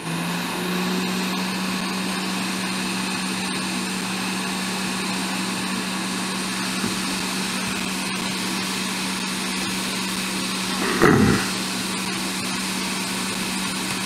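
Hot-air rework station (Quick 861DW) blowing steadily, a hiss over a low hum, as its nozzle heats a stripped screw so that it can be turned out. There is a short, louder sound about eleven seconds in.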